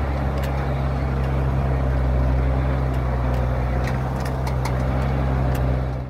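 Engine of a loaded truck running steadily as it drives a rough, rocky dirt track, heard from inside the cab, with scattered sharp knocks and rattles from the jolting vehicle. The sound cuts off abruptly at the very end.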